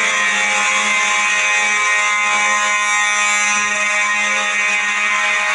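Fire alarm system horns sounding a continuous, steady, harsh buzzing tone with no breaks.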